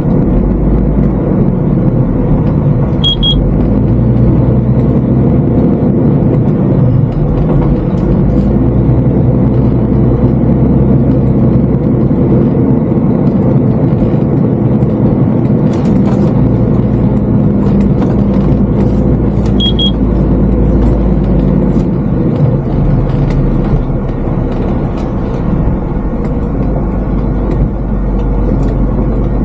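Heavy truck's diesel engine held in second gear with the exhaust brake fully on, a steady loud drone as it holds the loaded artic back on a slippery downhill into a landfill pit. Two short high electronic beeps sound, about three seconds in and again around twenty seconds in.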